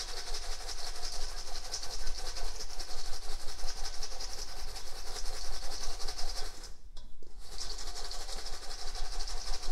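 Popped popcorn being shaken and tossed in a large stainless steel mixing bowl to coat it with sauce: a continuous dry rustling and rattling of kernels against the metal, pausing briefly about seven seconds in.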